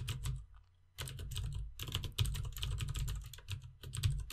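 Fast typing on a computer keyboard: rapid runs of key clicks, with a brief pause about half a second in.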